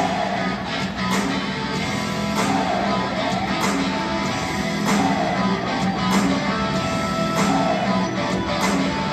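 Guitar-driven music with strummed electric guitar, played over a domed ballpark's loudspeakers, with a strong accent about every second and a quarter.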